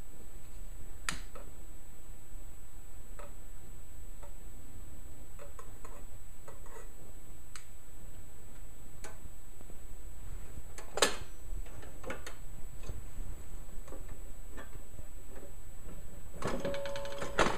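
Scattered light clicks and knocks of metal parts being handled on a kerosene heater while its wick is lit and the chimney lowered, with two sharper clicks, about a second in and near the middle. Near the end comes a short metallic rattle with a brief ringing tone.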